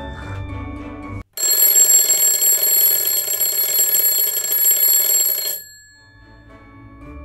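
Soft music that breaks off about a second in, followed by an alarm clock ringing loudly for about four seconds before it stops.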